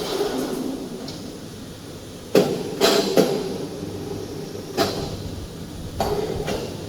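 Metal clanking while a heavy machine is handled: a handful of sharp knocks at uneven intervals, some leaving a short metallic ring, over steady workshop background noise.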